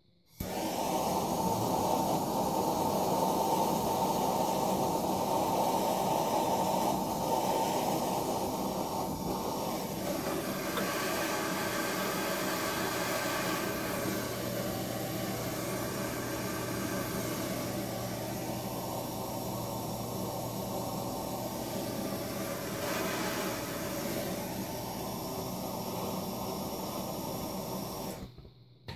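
Handheld hot-air blower, switched on just after the start, blowing a steady hiss onto a freshly thrown clay cup on the potter's wheel to firm it up, and switched off shortly before the end. Its tone shifts slowly as the nozzle is moved around the cup.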